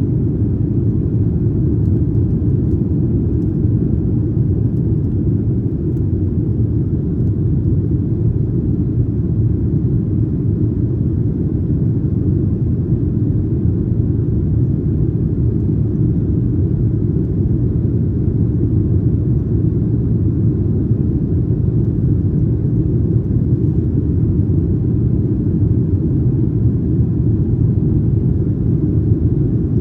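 Cabin noise of a Boeing 737-900ER in flight, heard from an economy seat: a steady, low rumble of the CFM56 engines and airflow over the fuselage.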